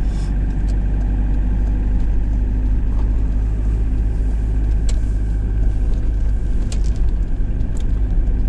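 Iveco Daily truck under way, its engine and road noise a steady low rumble inside the cab, with a few light clicks and rattles at irregular moments.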